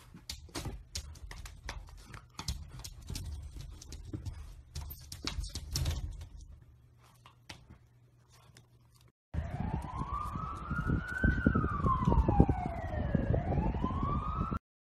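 Light taps and scratches from a puppy's paws against a mirror, dying away to near silence. About nine seconds in, a louder siren-like wail starts: a smooth tone that rises, falls slowly and rises again, over a rapid clatter.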